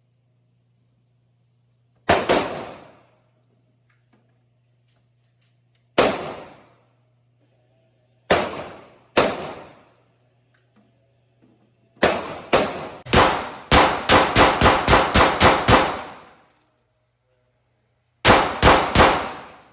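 Shots from a 9mm Glock 48 pistol, each ringing briefly. A few single shots come seconds apart, then a rapid string of more than ten, then three more in quick succession near the end.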